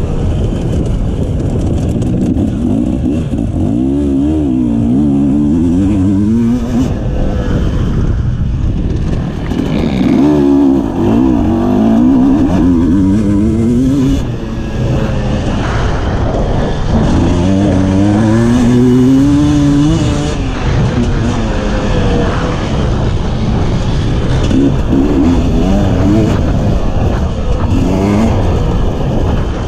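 Two-stroke enduro motorcycle engine heard from on board, revving up in repeated rising sweeps as it accelerates and dropping back between them.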